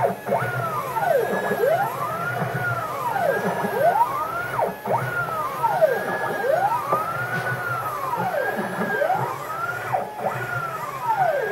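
Xylotex stepper motors of a home-built aluminium CNC router driving NSK ball screws through a test G-code program of circles, with no spindle fitted. Their whine rises and falls in pitch over and over in overlapping arches, with a low rumble beneath.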